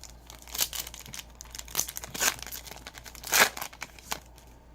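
Wrapper of a Panini Donruss Optic basketball card pack crinkling and tearing open in several short crackly bursts, the loudest about three and a half seconds in.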